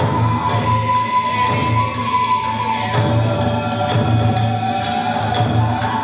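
Kagura festival music: a bamboo flute holding and stepping through a high melody over steady drumming, with small hand cymbals clashing in a quick, regular beat to accompany the dance.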